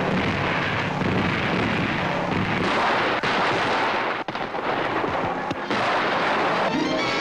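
Old film-soundtrack battle effects: a dense, continuous din of explosions and gunfire, broken by a few abrupt edits.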